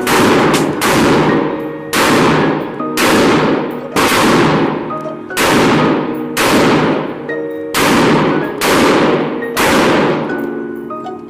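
AR-15-style rifle fired in a slow, steady string of single shots, roughly one a second. Each report rings out with a long echo in the enclosed indoor range.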